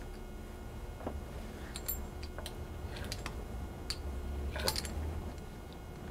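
Faint, irregular clicks and ticks of a fluted pastry wheel rolling through fresh pasta dough on a wooden cutting board, with a steady low hum beneath.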